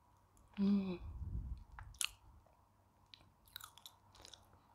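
Chalk being crunched and chewed close to a clip-on microphone: scattered crisp crunches, with a short voiced sound from the eater just before the first second.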